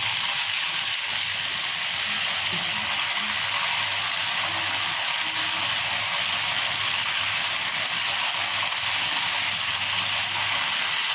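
Beef seekh kababs deep-frying in hot oil in a pan, a steady sizzle.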